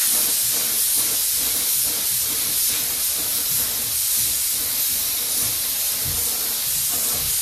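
Compressed-air spray gun spraying thinned Raptor bed liner onto a test card: a loud, steady hiss of air and atomised coating.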